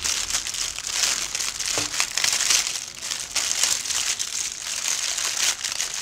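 Clear plastic bag crinkling and rustling as hands handle it and pull a toy out of it, an irregular stream of small crackles with no pauses.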